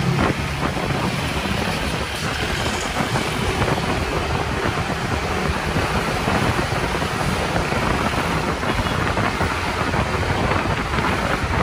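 Steady wind rush on the microphone mixed with motorbike and traffic noise while riding.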